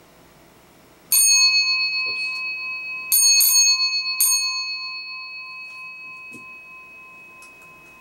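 Edwards 340 Adaptabel 120-volt fire alarm bell struck four times: once about a second in, twice close together near three seconds, and once more past four seconds. Its gong rings on and fades slowly after the last stroke.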